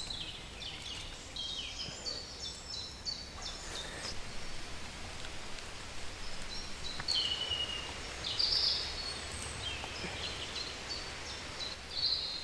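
Small birds singing: runs of short high notes, some stepping downward, over a steady low background noise. There is faint rustling with a few light ticks.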